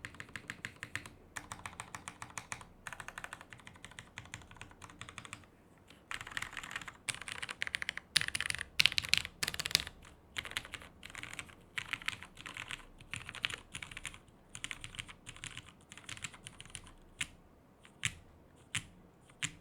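Mechanical keyboard typing: lubed Cherry MX Vintage Black linear switches on an aluminium plate in a top-mounted Matrix 2.0 Additional keyboard with CRP R4 keycaps. Fast, continuous keystrokes, loudest about eight to ten seconds in, slowing to a few separate keystrokes near the end.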